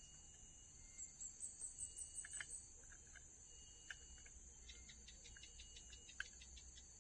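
Faint outdoor ambience of insects: a steady high drone, with a run of rapid high chirps about a second in and a quick patter of short ticks later on.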